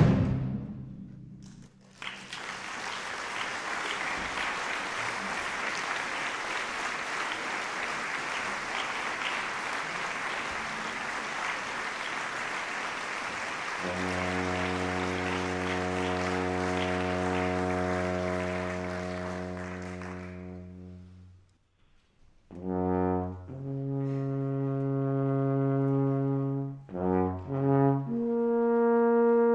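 Alphorn solo: one long low held note, then a short silence and a series of calls moving between separate notes. Before it, the last of a full orchestral chord with timpani dies away. A steady rushing noise with no pitch runs under the opening and fades out as the held note ends.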